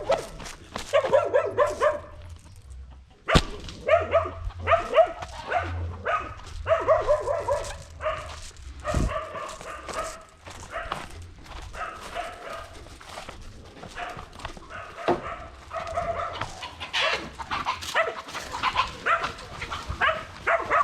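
Dog barking repeatedly in short, excited runs while chasing a rooster, with a single sharp crack about three seconds in.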